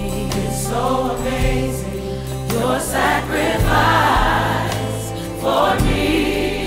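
Gospel music: a choir singing, with notes that bend and are held, over a steady low accompaniment.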